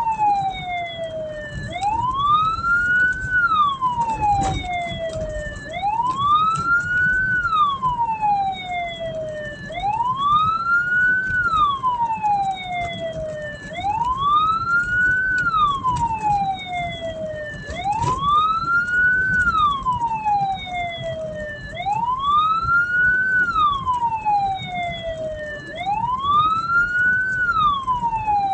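Hearse's siren wailing in a repeating cycle about every four seconds: a quick rise in pitch, then a slower fall. A steady low road and engine rumble runs underneath.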